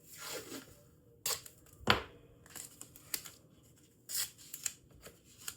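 A piece of tape being pulled off its roll and torn, heard as short rasps, with a few sharp clicks from handling. The loudest click comes about two seconds in.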